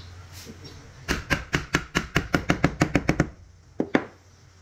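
Rapid knocking on wood, about five knocks a second for two seconds, then two more knocks a little later: the pieces of an interlocking wooden joint being tapped into place.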